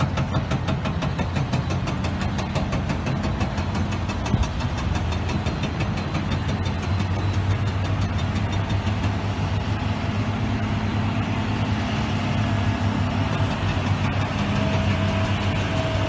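Diesel engine of heavy earthmoving equipment running steadily, with a fast, regular clatter that fades after the first few seconds.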